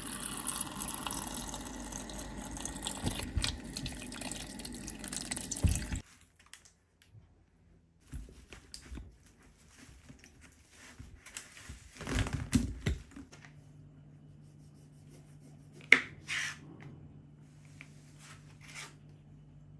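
Tap water pouring into a plastic bowl of limes in a sink, stopping suddenly after about six seconds. Then soft rubbing and rustling of a cloth over the limes, and later knife knocks on a plastic cutting board, one sharp knock the loudest, over a low steady hum.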